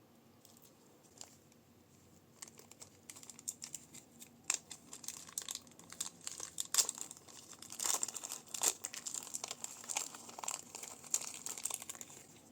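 Crunchy slime in plastic bags being squeezed and handled: a dense run of irregular crinkling and crackling that starts sparse, builds after about two seconds and is busiest near the end.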